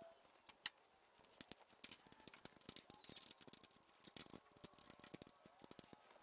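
Faint, irregular clicking of a ratchet wrench working a steering rack mounting bolt loose, with a couple of faint falling squeaks in the first two seconds.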